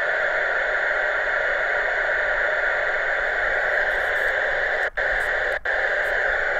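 27 MHz CB radio's speaker hissing with static, its squelch open after a call for a radio check, with no station answering; the hiss is steady and loud and drops out briefly twice near the end.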